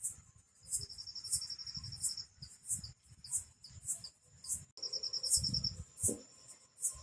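Insects chirping, cricket-like. A short high chirp repeats about every two-thirds of a second, and a faster pulsed trill at a lower pitch runs for about a second near the start and briefly again later. A low rumble rises and falls underneath, loudest near the end.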